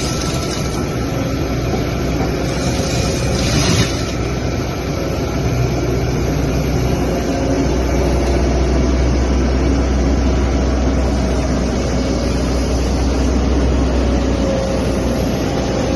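Excavator with a hydraulic mulcher attachment running steadily under load: the engine hum carries through a dense grinding noise, with a brief louder burst about four seconds in.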